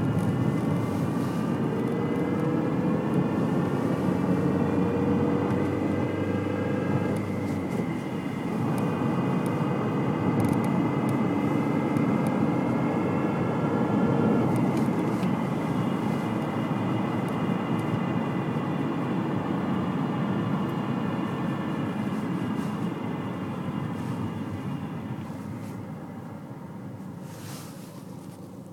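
A steady drone made of several held tones that waver slightly, over a dense low rumble, shifting pitch briefly about eight seconds in and fading away near the end.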